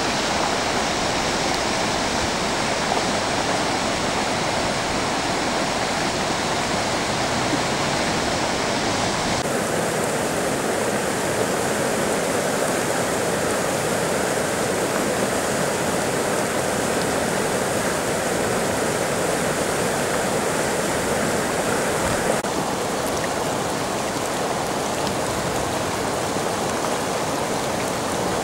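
Steady rush of running water from heavy rain. The sound changes abruptly twice, about nine and a half and twenty-two seconds in.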